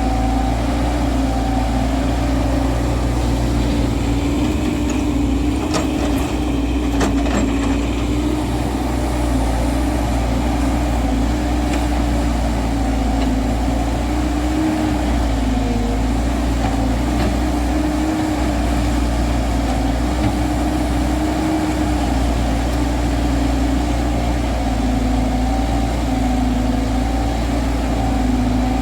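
Diesel engine of a JCB JS140 excavator running steadily at working speed, its note dipping and rising slightly now and then. A few faint clicks sound about a quarter of the way in.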